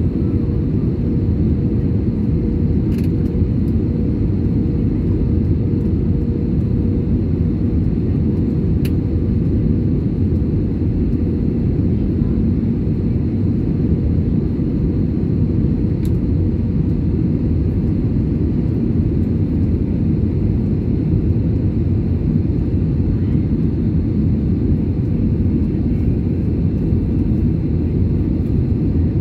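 Steady cabin noise of an Airbus A320-family jet airliner in flight, heard from a window seat: the constant low rumble of the turbofan engines and the airflow over the fuselage, with a faint steady hum.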